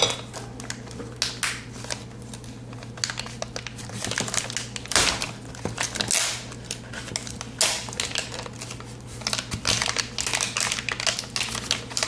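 Thick plastic packaging bag crinkling and rustling in the hands as it is poked and torn open, with irregular sharp clicks and crackles.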